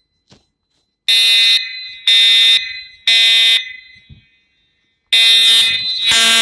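Voice-evacuation fire alarm sounding its temporal-three evacuation tone between repeats of the spoken message: three short buzzy blasts about a second apart, a pause, then the next group of blasts begins.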